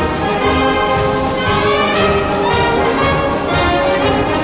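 Concert wind band of brass and clarinets playing a military march, full and loud, with a steady beat of about two strokes a second.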